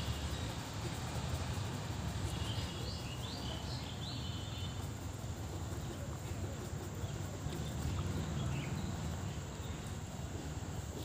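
Steady low background rumble, with a couple of short runs of high, twittering chirps from birds or insects about two to four seconds in.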